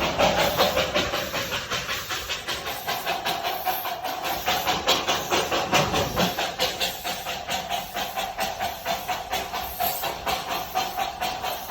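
Darjeeling Himalayan Railway steam locomotive chuffing under way: a quick, even beat of exhaust chuffs, several a second, over a steady hiss and a steady mid-pitched whine.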